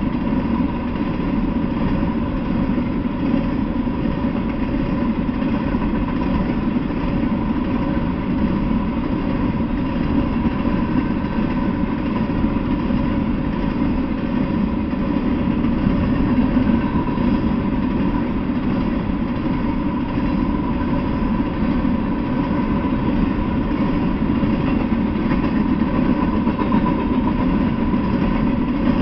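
Freight train of open-top hopper cars rolling past on the rails, a steady, unbroken rumble with a faint ringing hum on top.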